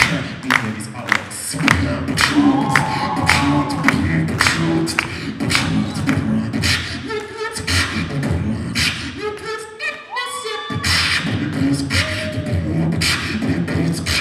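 Beatboxing amplified through a handheld microphone: a steady kick-and-snare beat with a vocal bass line and short pitched hums. About seven seconds in the bass drops out for a run of rapid stuttering mouth sounds, and the full beat returns near the ten-second mark.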